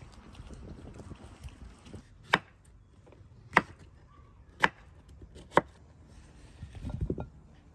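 A kitchen knife chopping squash on a wooden cutting board: four sharp chops, about a second apart. Near the end comes a short low clatter as the cut cubes are swept off the board into a bowl.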